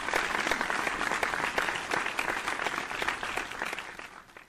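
Crowd applause: many hands clapping in a dense, steady patter that fades out near the end.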